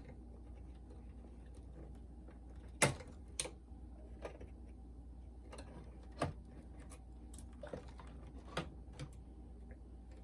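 Irregular sharp clicks and taps of tools and plastic parts being handled while a Pioneer SK-550 boombox is taken apart, the loudest about three seconds in, over a faint low hum.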